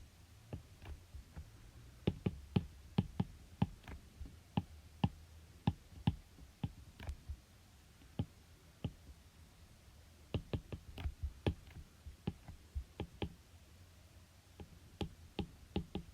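Irregular clicking of computer keys, a few sharp clicks a second in bursts, with a lull of a couple of seconds about halfway through and another shortly before the end.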